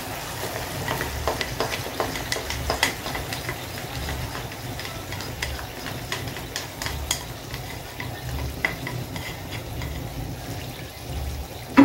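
Ketchup-based sweet-and-sour sauce scraped from a bowl into a frying pan of sautéed vegetables and pineapple, the pan sizzling steadily; a spatula makes many short clicks and scrapes against bowl and pan as the sauce is stirred in.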